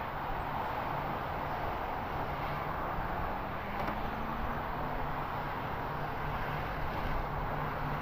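Steady outdoor background rush picked up by the nest camera's microphone, with a faint low hum and a faint rising tone near the middle. No eagle calls are heard.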